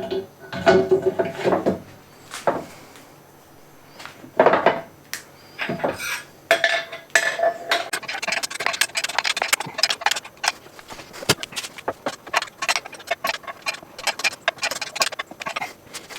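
Loose metal parts and tools clinking, knocking and rattling as they are handled, a few strikes at first, then rapid clattering through the second half, some hits ringing briefly.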